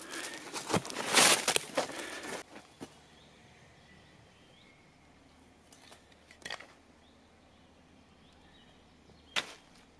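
Rustling and crinkling of a tarpaulin being handled for about the first two and a half seconds. Then quiet woodland with a few faint bird chirps and two brief rustles.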